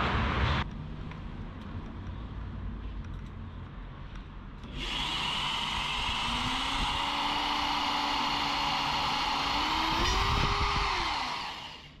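Benchtop drill press running, its bit boring a hole through square steel tubing. The motor comes in suddenly about five seconds in, its pitch rises briefly near the end, and it winds down just before the end.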